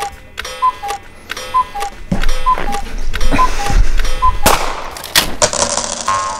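Cuckoo clock calling its falling two-note "cuck-oo" over and over, about once a second, with a click at each call. After about four seconds, loud knocks and a wash of noise take over, and the calls stop.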